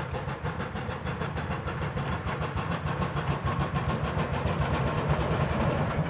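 Replica 1860s-design steam locomotive working through a tunnel toward the listener: a rapid, even beat of exhaust chuffs over a low rumble, slowly growing louder as it approaches.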